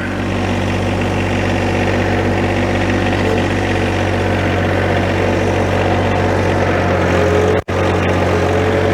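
John Deere 1025R compact tractor's three-cylinder diesel engine running steadily, picking up a little in the first second. The sound cuts out for an instant about three-quarters of the way through.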